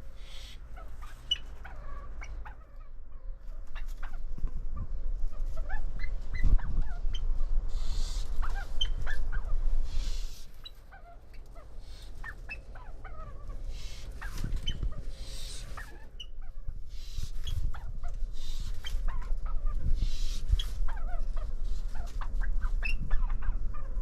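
Pheasants calling in a pen: harsh, hissy calls repeat every few seconds among scattered short chirps, over a steady low rumble.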